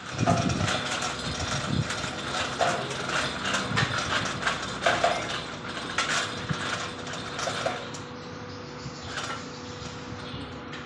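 Metal repair work on an excavator boom: irregular metal clanks and knocks, some with a short ring, over a steady machine hum.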